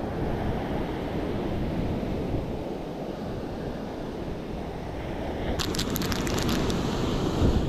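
Sea waves washing and wind buffeting the microphone, a steady low rushing noise. A short run of sharp clicks comes about three quarters of the way in.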